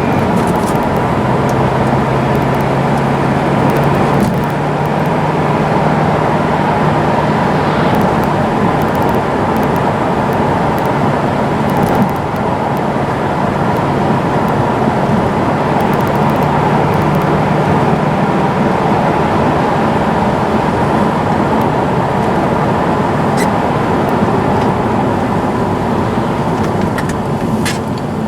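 BMW E60 520d being driven on the road: steady tyre and road noise with the engine running, a low hum under it for most of the first two-thirds.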